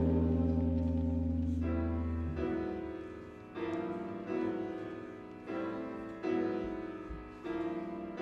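School band playing a quiet passage: a held low chord fades away over the first two seconds, then soft chords, piano-like, sound one after another in a gentle repeating pattern, each fading before the next.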